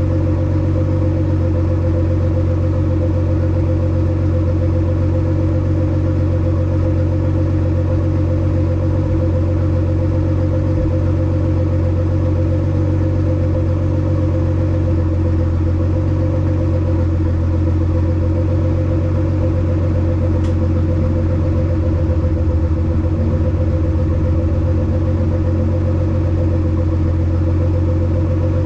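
Heavily modified Nissan R35 GT-R's twin-turbo 3.8-litre V6 idling steadily, with a deep, even exhaust note.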